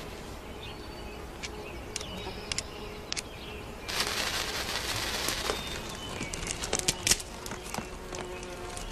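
A small fire of twigs and kindling being lit on the forest floor: scattered snaps and clicks from the kindling, a hiss lasting about two seconds as it catches about four seconds in, then a few sharper cracks. Birds chirp faintly.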